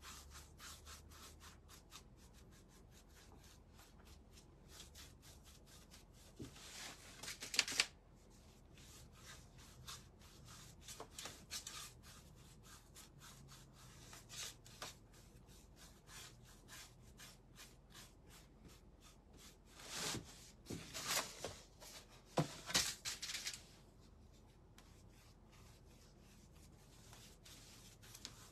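A paintbrush rubbing and scrubbing across a painted board as sealer is brushed on: soft, faint brushing with fine ticks of the bristles. There are louder spells of strokes about a quarter of the way in and again around two-thirds through.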